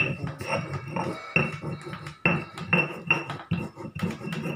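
Stone pestle pounding and grinding white pepper and salt in a stone mortar: a series of sharp knocks, about two a second, each with a short clinking ring.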